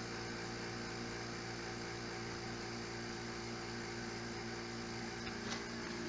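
Small electric vacuum pump running with a steady hum, slowly drawing a deep vacuum on the sealed drums; a faint click about five and a half seconds in.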